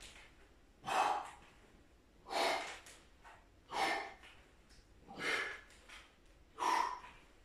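A man breathing hard and rhythmically while working through a plank exercise: five sharp breaths about a second and a half apart.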